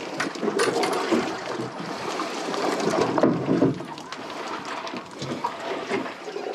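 Water sloshing and slapping against the hull of a drifting boat, an uneven hiss that swells and fades, with a few faint clicks.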